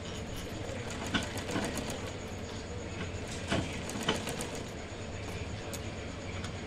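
Sewing machine running, stitching lace trim onto a blouse piece: a steady mechanical clatter with a few sharper clicks.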